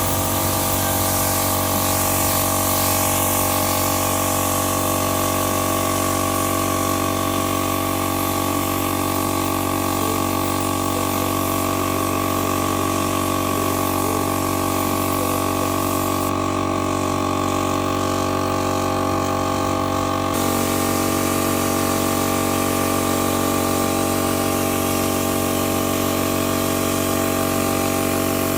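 A machine motor running steadily with a constant hum. Its tone shifts abruptly about twenty seconds in.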